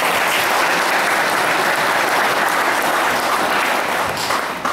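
Congregation applauding, steady and dense, dying away near the end.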